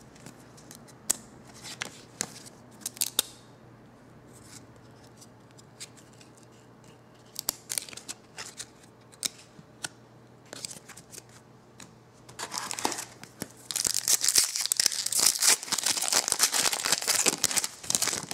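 Hockey cards being handled and flipped through, with scattered light snaps and clicks. From about twelve seconds in, a plastic card-pack wrapper crinkling and tearing open for several seconds, the loudest part.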